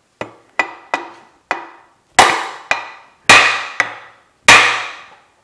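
Brass-headed hammer striking the steel steering knuckle of a GM 10-bolt front axle. Nine metallic, ringing blows: light taps at first, then three heavy strikes about a second apart with lighter taps between.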